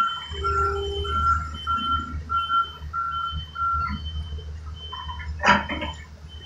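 Reversing alarm on construction machinery beeping evenly, a little under two beeps a second, over the low running of the machine's engine; the beeping stops about four seconds in, and a sharp clank follows about a second and a half later.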